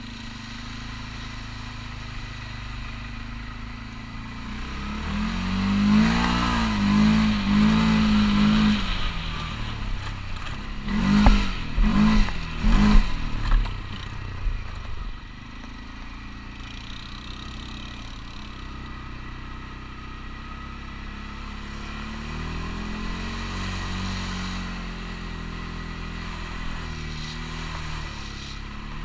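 CFMOTO ATV engine running under way. It is revved in a run of repeated surges a few seconds in, then gives three short, sharp revs, the loudest part, before settling back to a steadier drone.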